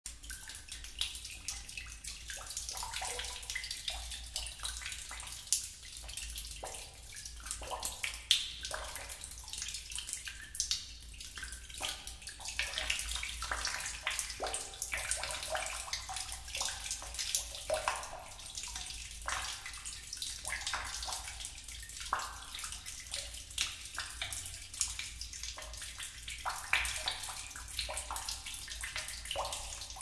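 Water dripping in a cave: many drops falling at irregular intervals, several a second, some louder than others.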